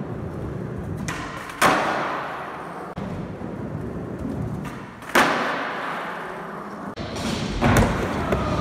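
Skateboard wheels rolling on a smooth concrete floor. Two loud, sharp clacks of the board come about a second and a half in and about five seconds in, the pop and landing of a nollie trick. A few smaller knocks follow near the end.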